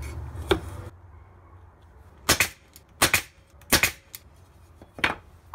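Cordless brad nailer firing nails into wood: several sharp shots, the loudest three less than a second apart in the middle.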